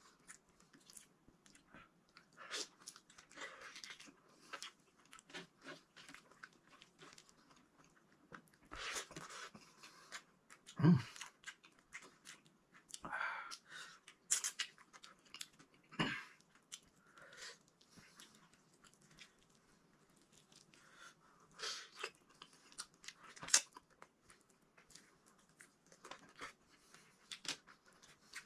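Close-miked eating: chewing of okra and eggplant, with irregular wet smacks and small crunches and a few louder clicks around the middle.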